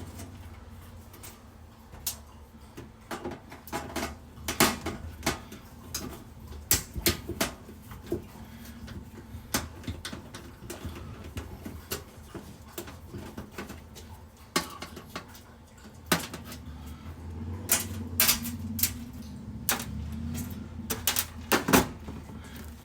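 Irregular clicks, taps and clanks of metal parts and hand tools being handled while a plate is taken off inside an electric oven.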